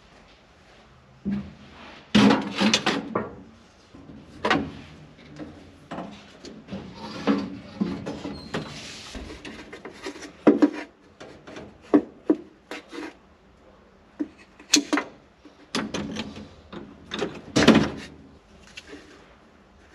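Irregular clanks, knocks and rubbing from hand tools and engine parts being handled in an old truck's engine bay, with louder knocks about two seconds in, around fifteen seconds in and near the end.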